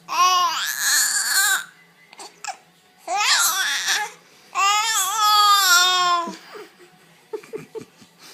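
A baby's high-pitched vocal play: three drawn-out squeals that waver up and down in pitch, each a second or so long, followed by a few soft clicks near the end.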